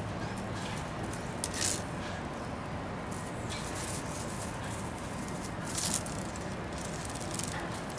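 Brief crackly rustles as a kitten paws a crinkly tinsel cat toy on a wicker chair seat, loudest about a second and a half in and again near six seconds, over a steady background hiss.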